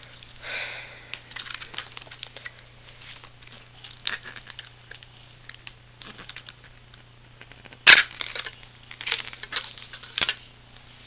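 Crinkling and rustling of thin plastic as the protective film is peeled off a new iPod Touch and the device and its clear plastic tray are handled. A sharp click about eight seconds in is the loudest sound.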